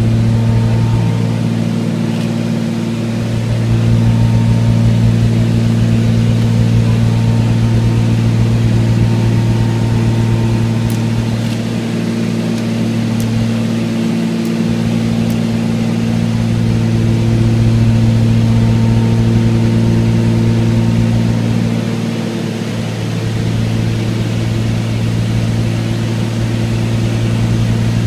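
Small propeller airplane's engine drone heard inside the cabin in cruising flight: a steady deep hum with tones stacked above it, slowly swelling and fading in loudness every several seconds.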